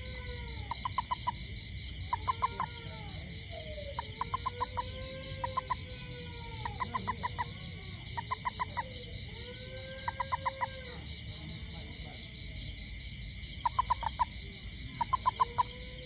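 A large toad calling while held in the hand: repeated short bursts of about five quick chirps, one burst every second or two, with slow wavering tones that rise and fall between them. A steady insect chorus runs underneath.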